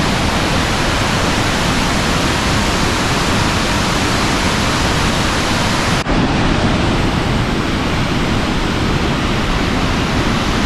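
Large waterfall swollen with winter runoff, rushing loudly and steadily at close range. There is a momentary break about six seconds in, after which the sound is slightly duller.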